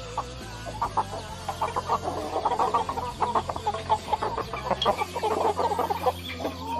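A flock of chickens clucking, with many short calls overlapping throughout.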